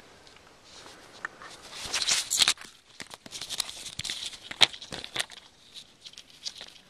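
Rustling and crackling of dry branches and brush against a helmet and camera as a person shifts and crawls through them close to the microphone, with many sharp snaps and clicks. It is busiest and loudest from about two to five seconds in, then thins out.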